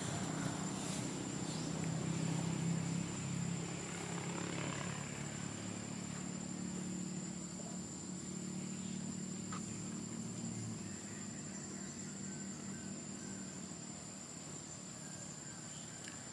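A distant engine running with a steady low hum that slowly fades away, under a thin, steady high-pitched whine.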